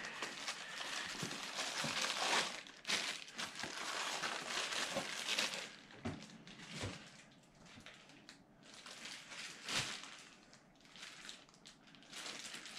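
Packing materials rustling and crinkling as parts are unpacked from a cardboard box, dense for the first five seconds or so, then a few scattered knocks and rustles.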